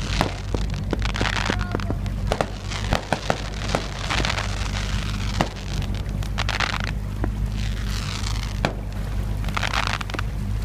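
Fireworks going off: many sharp pops and several bursts of dense crackling, each about a second long, over a steady low hum.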